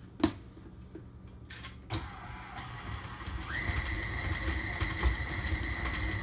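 Sharp click near the start, then about two seconds in a KitchenAid tilt-head stand mixer's motor starts up and runs steadily, beating a thick bean-and-oat burger mixture. About a second later a steady high whine joins the motor noise and holds.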